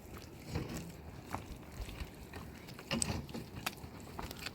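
Scattered light knocks and clicks, a few low thuds among them, spaced irregularly.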